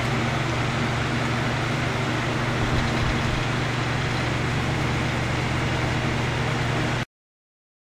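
Electric table fan running steadily: an even motor hum under a rush of air, cutting off abruptly about seven seconds in.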